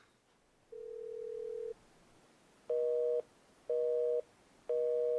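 Telephone line tones: one steady tone for about a second, then a busy signal of three short two-tone beeps about a second apart. The call does not go through.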